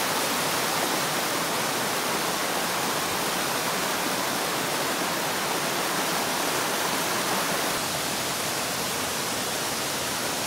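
Mountain stream rushing over rock ledges and small cascades: a steady rush of water.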